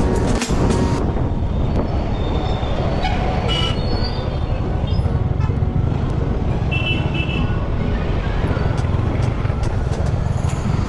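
Royal Enfield Classic 350's single-cylinder engine running at riding speed, with a steady low rumble of road and wind noise on the microphone and music underneath.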